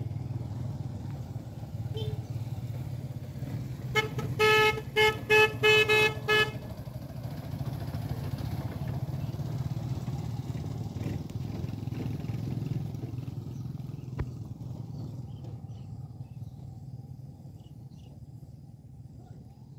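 Motorbike engine running steadily, with a horn tooted about six times in quick succession around four to six seconds in; the engine sound fades near the end.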